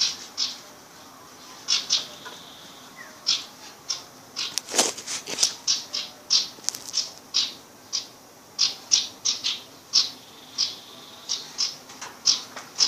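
A young sirpu songbird at the learning stage giving short, sharp, high chirps over and over at an uneven pace, with one louder call about five seconds in.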